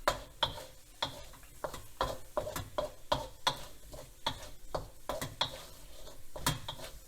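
A utensil stirring the food in a wok, tapping and scraping against the pan in irregular clicks, about two or three a second.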